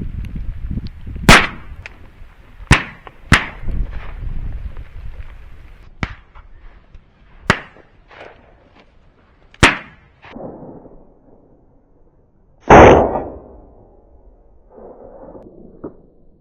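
Shotgun shots from dove hunters, about seven sharp reports in a row at differing distances, the loudest and closest about thirteen seconds in. A hiss of rain or wind runs under the first few seconds.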